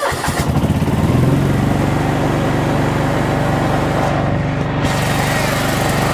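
John Deere 185 lawn tractor engine catching at the end of a cold start in deep frost: it fires unevenly for about a second, then settles into steady running.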